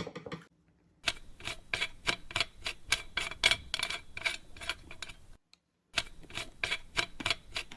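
Rhythmic scratching or rubbing strokes, about three a second, with a brief pause about two-thirds of the way through.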